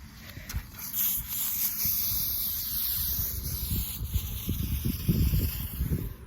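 Shaken soda can spraying out under pressure: a loud hiss starts about a second in and runs for about five seconds, with a faint whistle in it that slowly falls in pitch, over a low rumble from wind and handling.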